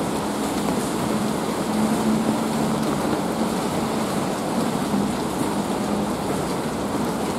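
Steady rain pouring down in a city, a dense even hiss of drops hitting surfaces. A faint low hum runs underneath.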